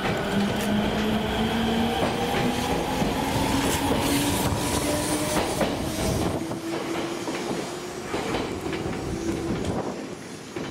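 Hokuetsu Express HK100 diesel railcar pulling out and accelerating past close by. Its engine note rises in pitch while the wheels click over the rail joints, and the sound fades after about six seconds as the train moves away.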